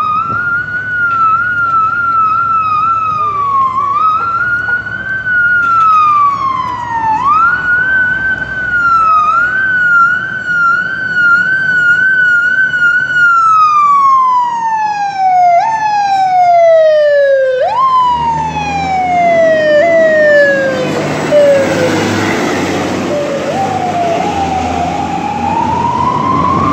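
Fire engine siren on a 1997 E-One Cyclone pumper, wailing and warbling: its pitch climbs, wavers quickly and drops several times, then sweeps down in a string of falling steps. About eighteen seconds in, a loud rush of truck engine noise swells as the rig goes by, and near the end the siren climbs again as it pulls away.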